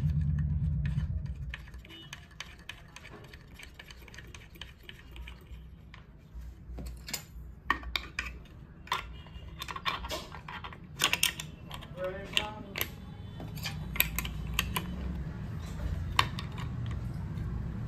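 Metal clicks and clinks of spanners, washer and bolt as a blade is fitted onto a circular saw's spindle and the bolt is tightened. The taps are irregular and scattered, and a few ring briefly.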